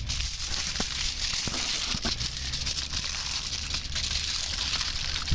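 Aluminium foil crinkling and crumpling in short bursts as it is handled and folded around a fish.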